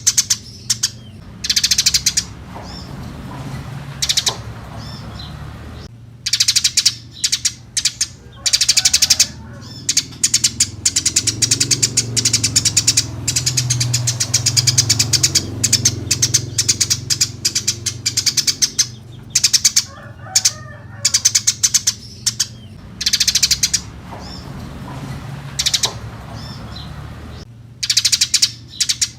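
Eurasian tree sparrows chirping in rapid bursts of short, high chirps, with a long unbroken run of chattering through the middle, over a faint low hum.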